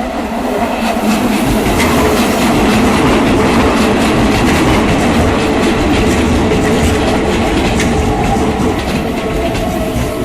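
Keikyu Line electric train passing over a level crossing at close range, a loud steady rumble with rapid clacking of the wheels over the rail joints. The crossing's warning bell rings steadily beneath it, mostly drowned out.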